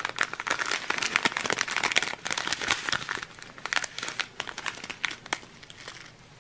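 Clear plastic bags of round diamond-painting drills crinkling as they are handled. The crackling is densest in the first few seconds and thins out and quietens near the end.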